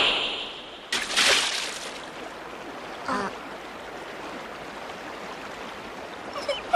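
Stream or river water flowing steadily, with a sudden splash about a second in and a brief voice-like sound around three seconds.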